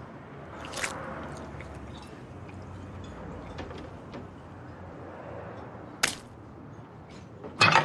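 Steady restaurant room ambience with no speech, broken by a single sharp knock about six seconds in and a brief rustling burst near the end.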